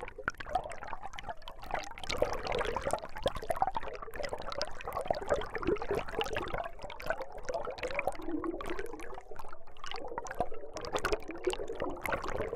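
Creek water rushing past a rock, heard underwater through an Ambient ASF-1 MkII hydrophone: a dense, steady water rush with many small clicks and pops.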